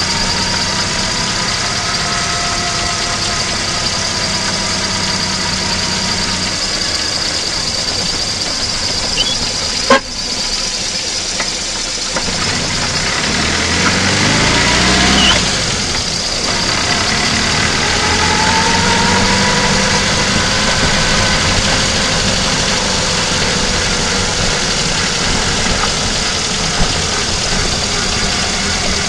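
VAZ-2109 engine running, heard close up from under the hood. A sharp click about a third of the way in; then the revs climb for a few seconds, fall away sharply, and rise again.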